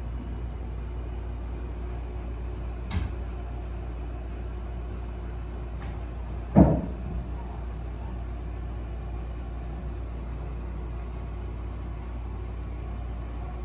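Steady low rumble, with a light knock about three seconds in and a heavy thump about halfway through, followed by a smaller knock.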